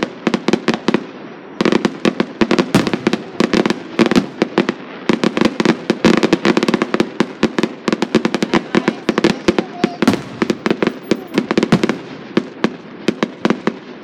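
Fireworks going off: a dense, continuous run of sharp bangs and pops, several a second, with a brief lull about a second in.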